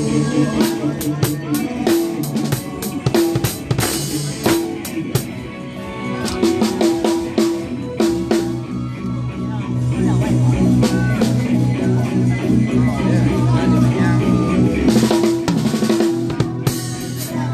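Band music driven by a drum kit, with snare and rimshot hits, a pounding bass drum and sustained pitched instrument notes over a bass line.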